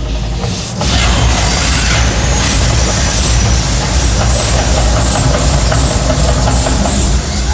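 Mirage volcano attraction erupting: a loud, steady rumbling roar with heavy bass, swelling about a second in and easing near the end.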